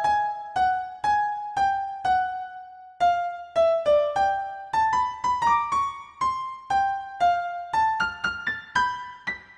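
Piano app on a phone playing a slow melody of mostly single sampled piano notes, each struck and then fading, about two or three a second. Near the end the notes climb higher and come quicker.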